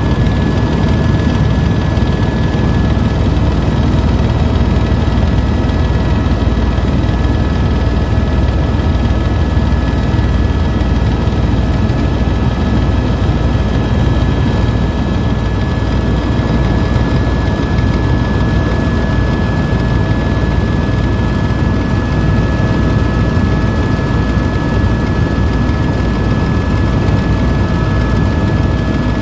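Tour helicopter in flight, heard from inside the cabin: a loud, steady rumble of rotor and turbine with a few thin whining tones held above it.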